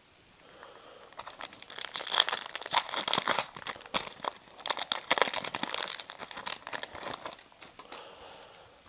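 Foil wrapper of a trading-card pack being torn open and crinkled by hand: a dense crackling that starts about a second in and dies away near the end.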